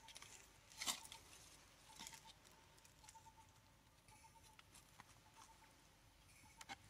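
Near silence: quiet outdoor background with a few faint sharp clicks, the loudest about a second in, and a faint tone pulsing on and off throughout.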